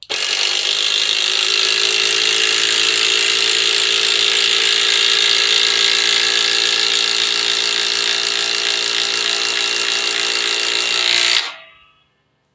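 Cordless impact driver running steadily and loudly for about eleven seconds, then stopping and winding down.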